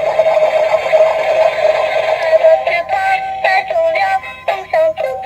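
A toy vehicle's electronic sound chip playing through its small built-in speaker: a steady buzzing tone for about two and a half seconds, then a synthesized tune of short sliding notes.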